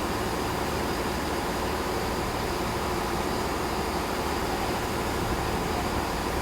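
Class 166 diesel multiple unit's underfloor diesel engines running with a steady, even hum.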